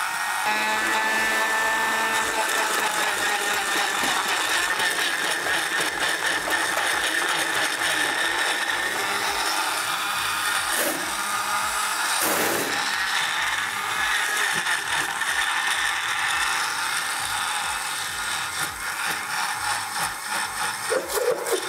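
Electric blender running, chopping fresh tomatoes into a coarse pulp. The motor runs steadily, and the sound turns uneven near the end.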